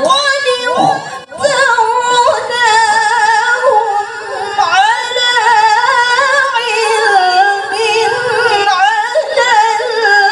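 A woman reciting the Qur'an in a melodic, ornamented chant, holding long wavering notes, with a short break about a second in.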